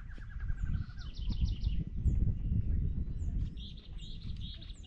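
Several small birds calling: a fast trill near the start, then higher rapid trills and repeated short, high chirps, with a steady trilling series through the second half. Beneath them is a low, uneven rumble.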